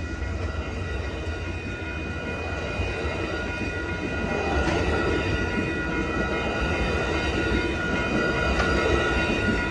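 Amtrak Superliner bilevel passenger cars rolling past at a grade crossing: a steady rumble of steel wheels on rail, with faint steady high ringing tones over it.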